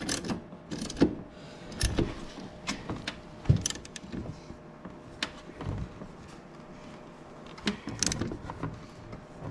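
Hand ratchet with a 16 mm socket tightening a bolt: irregular metallic clicks and knocks as the handle is worked, the loudest about three and a half seconds in.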